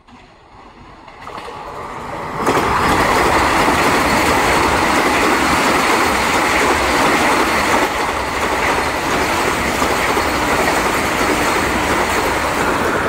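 Vande Bharat Express electric multiple-unit train passing at speed: the sound grows as it approaches, then jumps to a loud, steady rush of wheels on rail about two and a half seconds in as the front reaches the microphone, and carries on as the coaches run by.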